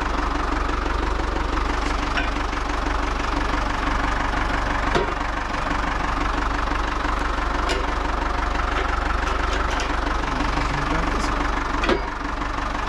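Ford 5000 tractor's four-cylinder engine running steadily at idle, with two sharp knocks, about five seconds in and near the end.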